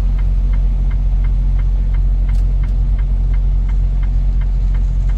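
Diesel engine of a Freightliner Cascadia semi truck running at a steady idle, heard from inside the cab, with a light regular ticking about three times a second.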